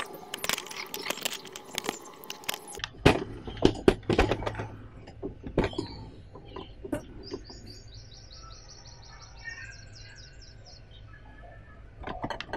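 Knocks and clicks of a corded drill and metal parts being handled and fitted into a table mount, a run of sharp strokes over the first six seconds. Then a bird chirps rapidly in the background, a quick series of short high chirps for about three seconds, over a low steady hum.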